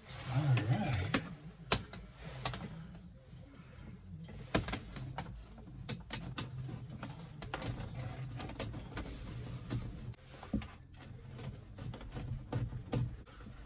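Red and black wires being worked into a gray wire raceway along a ceiling corner: scattered small clicks and scrapes of handling, over a steady low hum.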